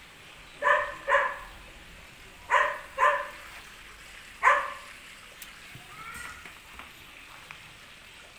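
Dog barking: short barks in two quick pairs, then a single bark.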